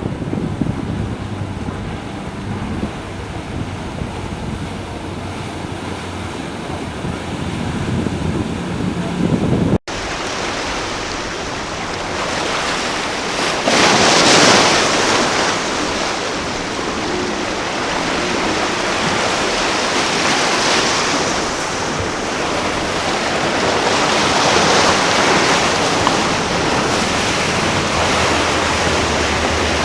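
Ocean waves rushing and breaking at an inlet, with wind buffeting the microphone. A low rumble fills the first part, then the sound cuts out for an instant about ten seconds in, and three louder wave surges stand out later.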